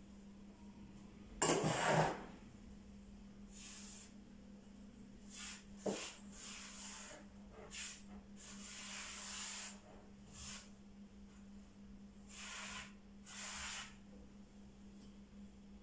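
Gloved hands mixing and rubbing flour into feteer dough on a wooden board: a series of soft brushing swishes, the loudest about a second and a half in, with a sharp tap near six seconds. A steady low hum runs underneath.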